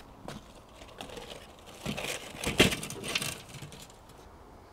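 A rusty metal charcoal chimney starter being set down on the grill grate: a run of rattles and scrapes of metal on metal, with one sharp clank about two and a half seconds in.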